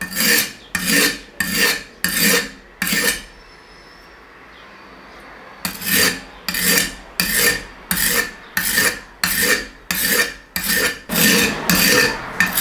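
Tip of a 67 HRC Miyabi 5000MCD knife being ground on a whetstone to restore a broken point, in sped-up footage: fast, even rasping strokes of steel on stone, about two a second. The strokes stop for about two seconds a quarter of the way in, then carry on.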